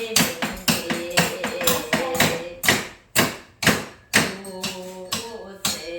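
Tambourine struck on the beat about twice a second over trot-style karaoke music, with a held note of the melody under the hits.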